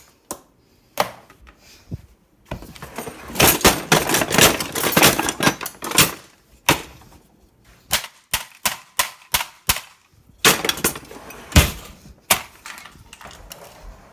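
A long run of sharp knocks and bangs of hard objects striking: a dense clatter at first, then a steady run of single strikes about four or five a second, then more clatter.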